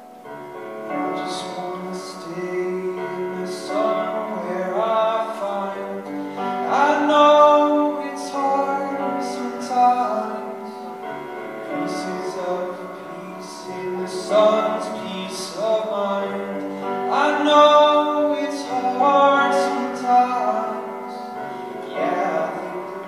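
A man singing a slow song while accompanying himself on a grand piano; the voice comes in about a second in over the sustained piano chords.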